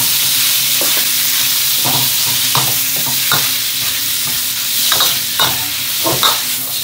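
Pork belly with garlic and chili sizzling in a hot cast-iron wok, stir-fried with a metal spatula that scrapes and knocks against the pan every second or so as the fat renders out.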